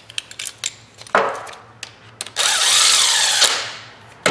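Metal tools clinking and knocking as they are handled, with a sharp knock about a second in. About halfway through, a cordless impact gun runs on a bearing separator for about a second, then winds down.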